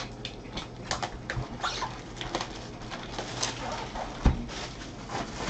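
Gloved hands handling and opening a cardboard trading-card hobby box: scattered rustles, scrapes and small clicks, with one sharp thump about four seconds in as the box is set down on the table.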